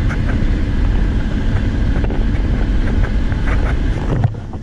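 Jeep SUV driving on the road, heard from inside the cabin: a steady low rumble of engine and tyres with wind noise on the microphone.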